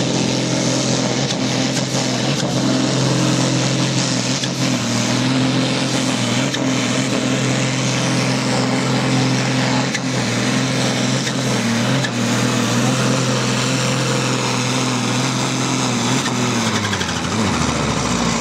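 Ford 8000 pulling tractor's diesel engine running flat out under load as it drags the weight sled, a steady drone with black smoke pouring from the stack. Near the end the engine note falls away as the pull comes to a stop.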